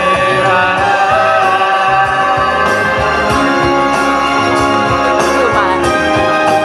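Live pop band playing, with held keyboard or organ chords, a steady drum beat and a gliding sung melody line.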